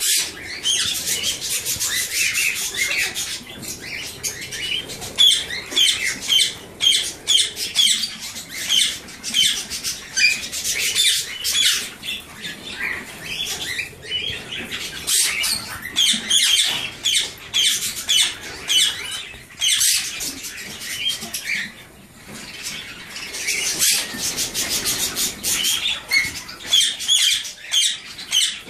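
Alexandrine parakeets calling in rapid runs of short, repeated squawks, several a second, while being hand-fed, with a brief lull about two-thirds of the way in.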